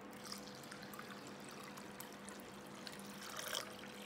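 Water poured from a glass measuring jug into a glass bowl of raw glutinous rice, a faint splashing trickle, to rinse and soak the rice. It grows a little louder about three and a half seconds in.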